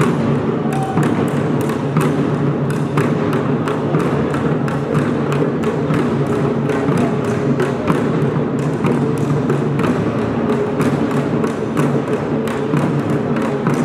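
Traditional Korean folk percussion (pungmul) playing a steady fast beat, sharp strikes about four a second over a dense ringing drone.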